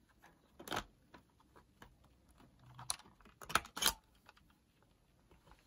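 Plastic casing of a Sanyo M4430 personal cassette player clicking as it is prised apart by hand: one click about a second in, then a few sharper clicks a little past the middle.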